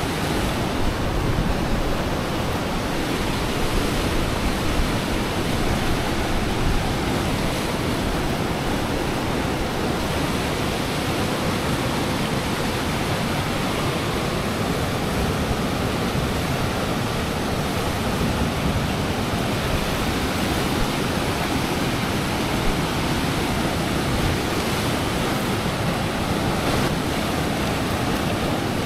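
Fast river water rushing at a dam: a steady, even rush with no breaks.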